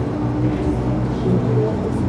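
Steady low hum of a 300-series Shinkansen train, with a murmur of voices mixed in.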